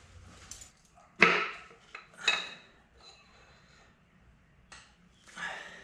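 Metal tools and engine parts clanking during an LS1 engine teardown: a sharp knock about a second in, a second one with a short metallic ring about two seconds in, and a softer clatter near the end.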